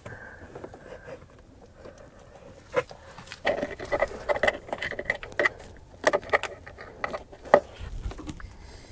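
Electrical cables being fed through a rubber firewall grommet: irregular scraping, rustling and clicks, busiest from about three and a half seconds in.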